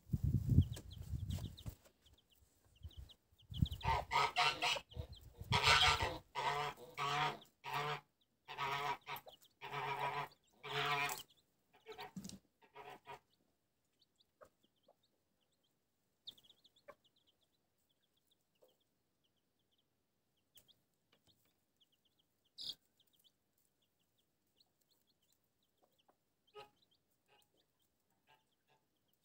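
Domestic fowl calling loudly and repeatedly for about ten seconds. After that, chicks peep faintly and softly beside a feeding hen.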